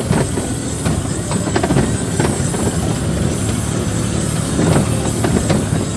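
Steady engine and road noise inside a moving vehicle's cabin, with scattered light knocks and rattles.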